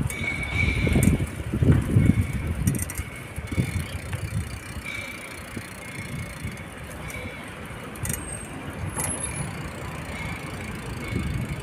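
Irregular low rumbling of wind and handling noise on a moving phone's microphone, with a faint high squeak that comes and goes.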